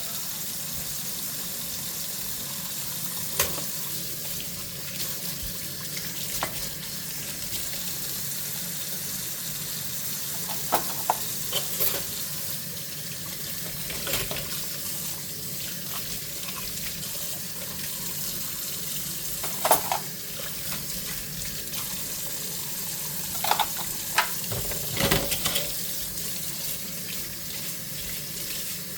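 Tap water running steadily into a kitchen sink during hand dishwashing, with dishes clinking and knocking against each other now and then, about nine times, loudest around two-thirds of the way in and near the end.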